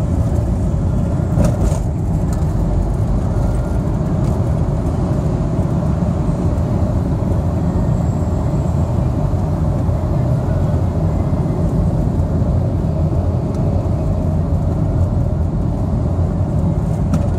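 Steady road noise of a moving taxi, heard from inside the cabin: an even, low rumble of engine and tyres that keeps a constant level.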